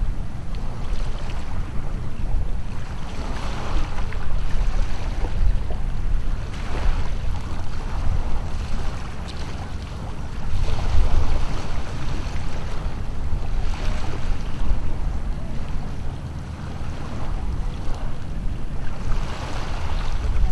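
Wind buffeting the microphone with a fluctuating low rumble. Small waves wash on the shore, swelling and fading every few seconds.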